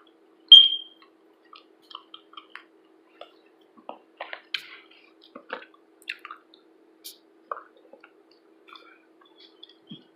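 Mouth sounds of someone tasting and eating hummus: scattered soft wet smacks and small clicks. About half a second in there is one sharp, briefly ringing clink, like a utensil against a dish.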